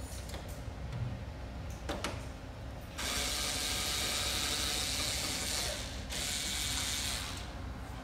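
Power screwdriver running in two runs, a longer one of nearly three seconds and a shorter one, backing out the screws of a photocopier's left-hand paper exit assembly, after a few light clicks.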